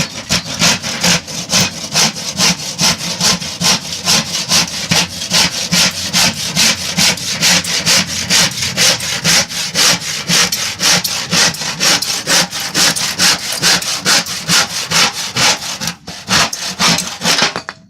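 Bahco 244+ Barracuda hand saw sawing through wood in quick, even back-and-forth strokes, about three a second, with a brief pause near the end before a few more strokes.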